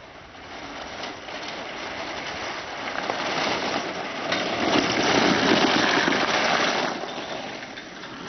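A homemade kart rolling down a road, its wheels making a rumbling rattle on the rough surface. The rattle builds, is loudest about halfway through, and fades near the end.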